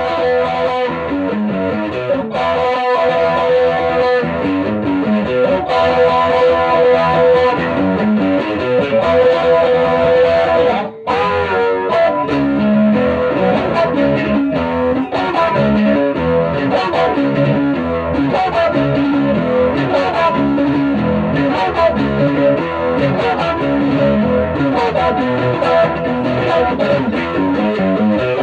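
Electric guitar played through a 1965 WEM Control ER15 valve PA head with a push-pull EL84 output, sounding chords and notes in a running amp sound test. There is a brief break about eleven seconds in.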